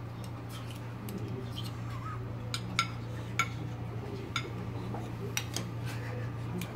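Metal spoons clinking against each other and a small glass bowl as a tuna mixture is shaped into quenelles between two spoons: a handful of light, scattered clinks with a short ring. A steady low hum runs underneath.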